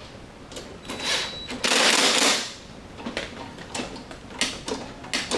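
Hand work on a Toro Recycler mower's self-propelled drive cable adjuster: a run of sharp metal clicks and knocks, with a longer scraping rustle lasting about a second near the middle, as the cable is slid and set to a new tension.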